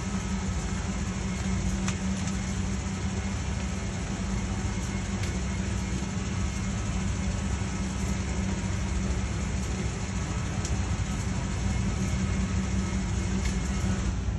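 Steady machine drone with a low hum and a few faint ticks: the Flex CNC long-bed mill running as its axis traverses a dial indicator along the vises.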